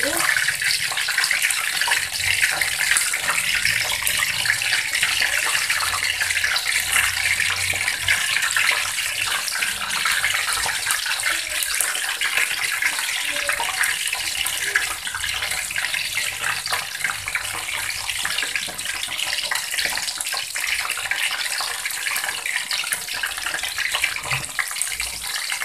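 Bakwan udang batter (shrimp and vegetable fritters) deep-frying in hot oil in an aluminium wok, the batch freshly put in: a steady, dense crackling sizzle.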